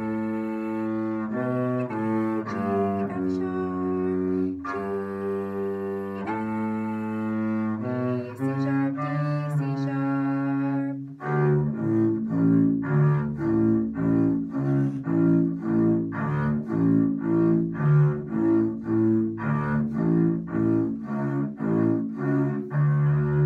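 Double bass bowed through a simple beginner's bass line: long held notes that change pitch every second or two for about the first half, then shorter notes repeating at about two a second from about halfway through.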